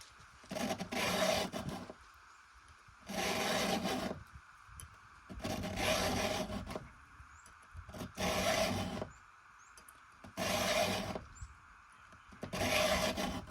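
A round chainsaw file rasping across the cutter teeth of a ripping chain in six slow, even strokes, about one every two seconds.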